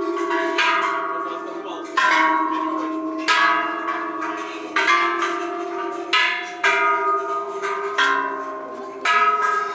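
A row of large bronze Thai temple bells struck one after another by people walking along beneath them: about eight strikes, a second or so apart, each ringing on and overlapping the last.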